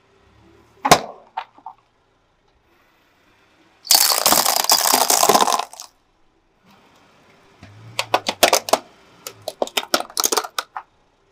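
Objects being crushed under a car tyre: a sharp pop about a second in, a dense crunching of breaking plastic for about two seconds, then a run of separate sharp cracks and snaps.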